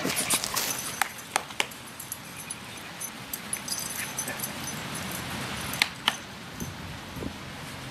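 A dog whining faintly, with a few sharp clicks and knocks near the start and again about six seconds in.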